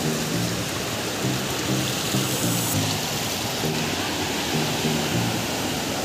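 Water rushing and splashing steadily as it pours over a weir, with background music of soft, repeating low notes laid over it.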